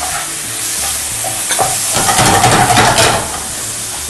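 Small chicken pieces frying and sizzling in a pan while a wooden spatula stirs and scrapes them. About two seconds in, the stirring gets busier and louder for about a second, then eases back to a steady sizzle.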